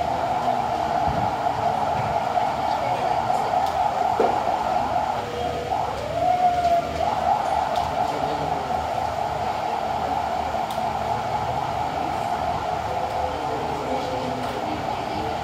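Steady whirring hum, with a brief rising tone a little after six seconds in.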